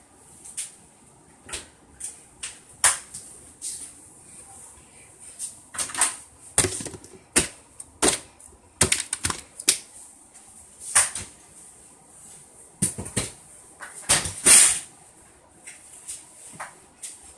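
Irregular clicks and knocks of things being handled in a kitchen, a dozen or so sharp knocks with the loudest about three quarters of the way through, over a faint steady high hiss.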